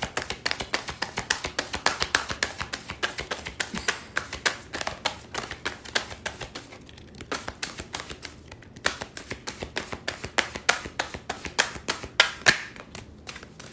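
A deck of cards being shuffled by hand: a quick, uneven run of light card taps and slaps, several a second, thinning out briefly midway.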